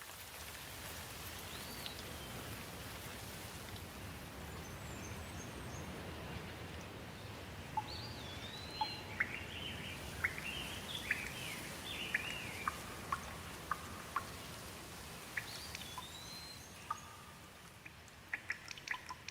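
Steady rain falling, with birds calling through it: a few rising-and-falling whistled notes and a busy run of short chirps in the middle. Sharp, quick drips near the end.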